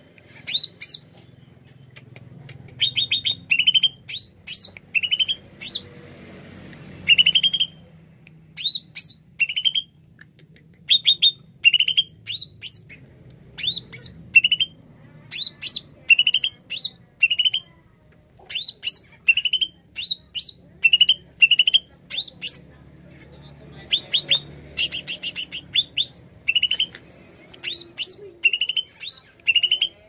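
Caged male greater green leafbird (cucak ijo) singing: short, clear, upslurred whistled notes in quick groups of two to four, repeated with brief pauses, with a faster rattling run about 25 seconds in.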